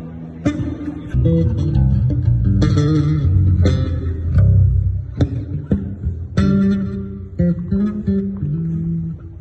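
Bass guitar played in a sound check: a run of plucked low notes moving from pitch to pitch, with sharp attacks on several of them.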